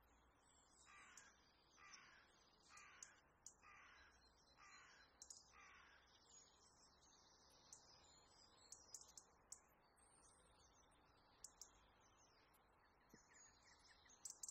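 Faint birds calling: a run of six harsh calls about a second apart in the first half, with high chirps scattered throughout.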